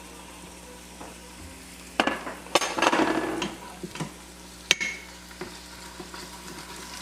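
Spoon stirring and scraping onions, garlic, chilies and spices in an Instant Pot's pot on the sauté setting, over a low sizzle. A sharp clink rings out about two-thirds of the way through.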